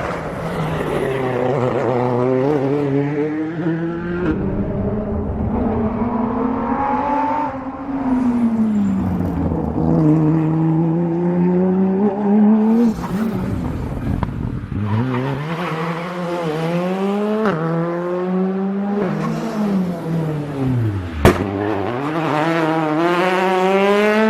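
Rally car engine at full effort, revving up through the gears and dropping back off the throttle again and again, its pitch climbing and falling. A single sharp bang comes a little before the end.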